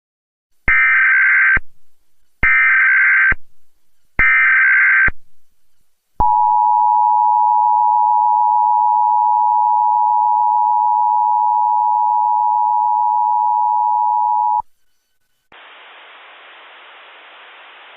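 Emergency Alert System SAME header: three identical bursts of screeching data tones, each just under a second, encoding a tornado warning. Then the EAS two-tone attention signal (853 and 960 Hz) sounds steadily for about eight seconds and cuts off. About a second later a faint steady hiss sets in.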